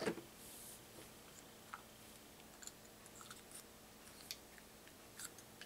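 Faint, irregular small clicks with a brief rustle about half a second in: small shotshell reloading parts (wad, card, hull) being handled on the bench.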